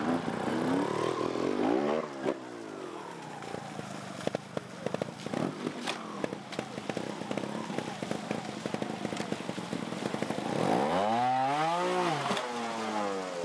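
Trials motorcycle engine being blipped and revved while climbing a rocky section, with a scatter of short knocks in the middle. Near the end comes the loudest part: one long rev that rises and falls.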